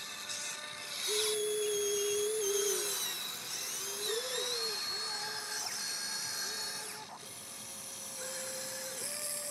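Radio-controlled toy excavator's electric motors whining in short runs as the boom, arm and bucket move to dig sand, the pitch rising and dipping from one movement to the next.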